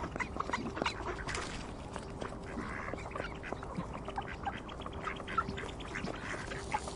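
A group of ducks quacking, many short calls overlapping without pause.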